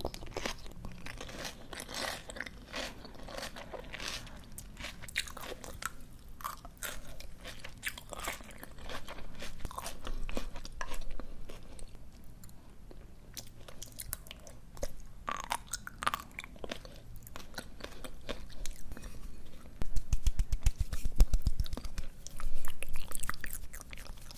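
Close-miked chewing and crunching of crisp, juicy raw greens, with sharp crackles throughout. About twenty seconds in there is a louder stretch of rapid low thuds.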